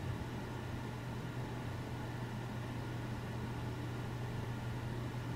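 Steady low background hum with faint hiss, unchanging throughout: room tone from the recording setup, with no distinct event.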